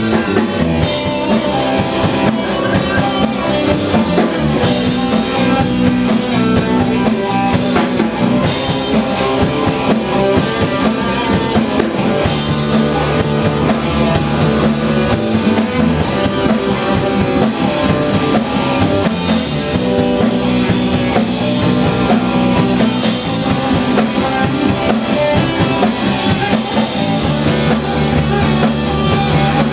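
Rock band playing an instrumental passage with a drum kit and electric guitar, a fresh cymbal crash marking each phrase about every four seconds.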